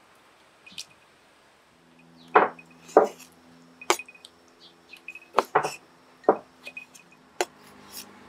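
A large kitchen knife chopping soft wild mushrooms on a wooden cutting board: about eight sharp chops at irregular intervals, starting about two seconds in.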